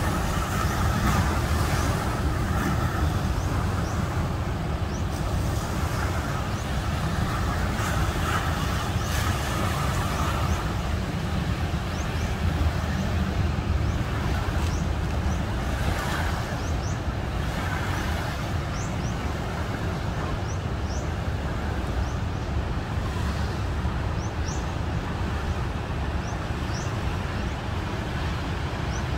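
Steady noise of heavy ocean surf breaking offshore, a constant low rumble with no breaks. A few faint, short, high chirps are heard in the second half.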